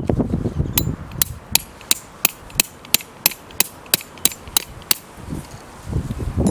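A run of sharp, evenly spaced taps or knocks, about three a second for some four seconds, with low rumbling noise before and after them.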